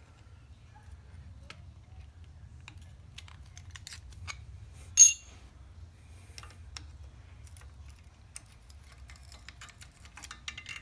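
Small metallic clicks and scrapes as chrome pushrod tube covers on a Harley-Davidson Shovelhead engine are levered down with a screwdriver and slid off by hand, with one sharp ringing metal clink about halfway through.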